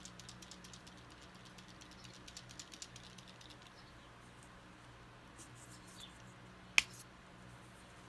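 Rapid light clicking and tapping of painting tools against a plastic paint palette for the first few seconds, then one sharp, loud click near the end as a bottle of acrylic craft paint is handled.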